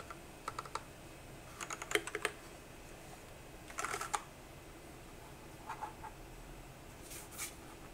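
Light clicks and clacks from a Machenike K500 mechanical keyboard being handled, its keys and plastic case knocking. They come in about five short clusters.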